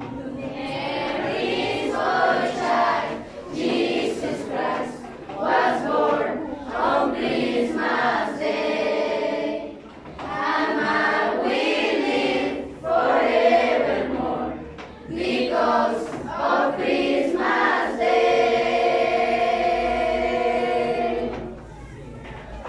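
A choir of students singing a Christmas carol in English, in phrases with short breaks, ending on a long held note near the end.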